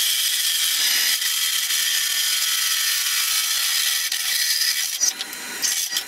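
Hole saw in a drill press cutting into a steel pipe: a steady, high-pitched grinding cut that eases off near the end.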